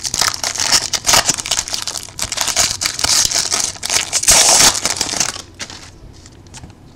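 Foil wrapper of a football trading-card pack being torn open and crinkled, a fast run of crackles and rustles that dies away about five seconds in.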